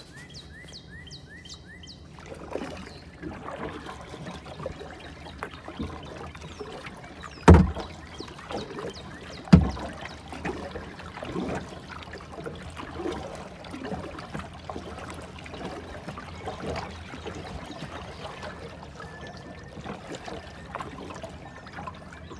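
Kayak paddling on calm water: the paddle blades dip and drip in an uneven run of small splashes and trickles, with two loud knocks about two seconds apart. A bird chirps quickly over the first couple of seconds.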